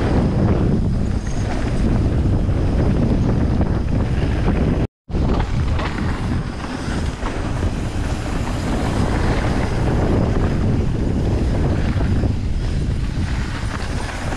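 Wind buffeting the microphone while riding a downhill mountain bike down a wet trail, over a steady low rumble of tyres and bike. The sound cuts out completely for a split second about five seconds in.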